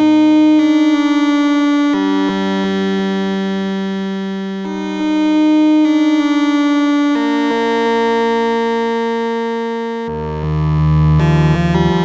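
Moog Spectravox analog synthesizer voice playing held notes that change pitch every few seconds, each swelling up when it starts. A deeper note comes in near the end.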